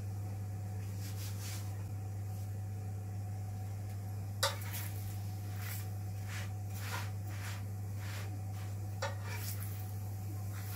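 Clicks and light taps of a utensil against an electric chapati maker as a chapati is lifted and turned, over a steady low hum. The sharpest click comes about halfway through, a smaller one near the end.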